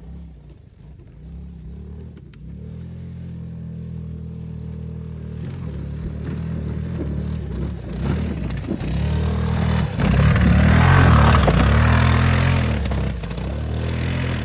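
A vehicle engine running and revving, its pitch rising and falling several times, loudest about two thirds of the way in.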